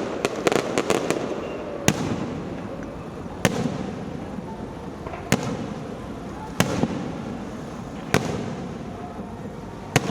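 Fireworks going off: a quick run of sharp cracks in the first second, then single loud bangs about every one and a half seconds, each trailing off in a short rumble.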